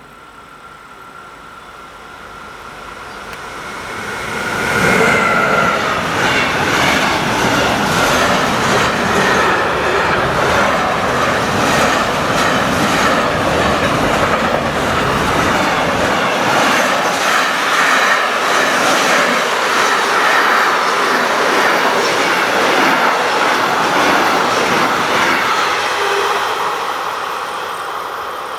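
A train passing close by at speed on the main line, its wheels clattering over the rails. It builds up over the first few seconds, holds loud and steady for about twenty seconds, then begins to fade near the end.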